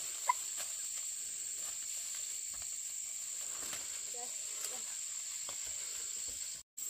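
Steady, unbroken high-pitched insect chirring, like crickets in the countryside. There is a single sharp click just after the start and a faint voice briefly about four seconds in.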